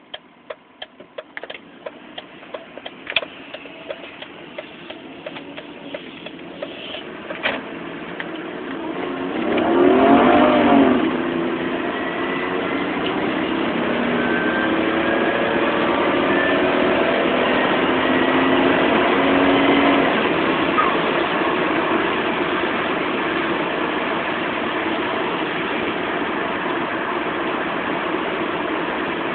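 Volvo S80 T6 accelerating hard from a stop up to about 80 mph, the engine growing louder with a whine that climbs in pitch over and over through the gears. The whine is an unexplained 'weird whinny noise' under boost that the owner can't trace. A few sharp clicks come in the first seconds before the car pulls away.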